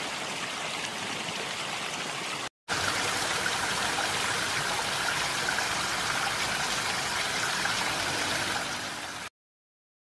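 Waterfall rushing as a steady wash of falling water. It drops out for a moment about two and a half seconds in, returns louder, and cuts off abruptly shortly before the end.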